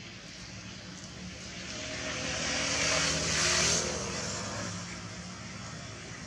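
A passing engine, rising to its loudest about three seconds in and then fading away.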